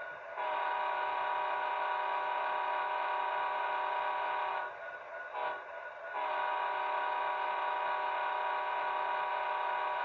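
Sound-equipped HO-scale SD70ACe model locomotive sounding its recorded multi-tone diesel horn through its small onboard speaker. It plays a long blast, a brief toot about five seconds in, then a second long blast.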